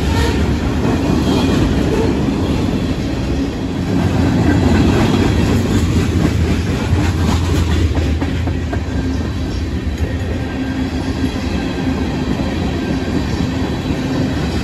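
Freight train's tank cars and covered hoppers rolling past: a steady, loud rumble and clatter of steel wheels on rail, with scattered clicks as the wheels cross rail joints.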